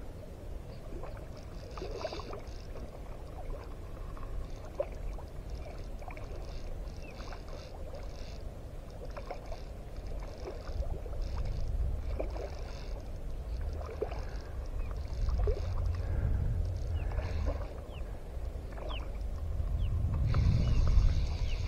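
Water lapping and splashing around a shallow-water skiff, over a low rumble that grows louder in the second half and peaks near the end.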